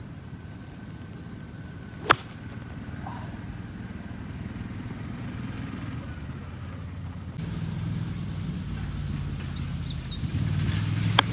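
Two sharp single cracks of a 58° wedge striking the ball. The first, about two seconds in and the louder, is a heavily duffed (fat) shot. The second, near the end, is a short chip.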